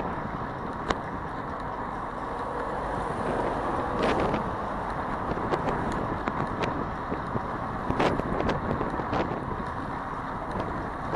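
City road traffic: a steady rush of passing cars, swelling twice, with a few short sharp clicks.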